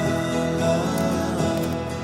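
Background music: a soft song with acoustic guitar.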